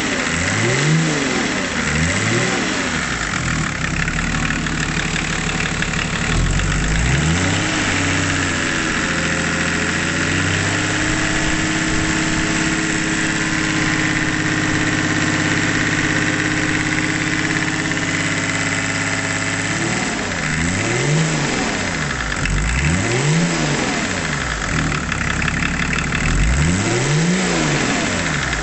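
BMW turbocharged six-cylinder marine diesel revved in quick throttle blips, its pitch rising and falling several times. It settles to a steady idle through the middle, then is blipped again several times near the end.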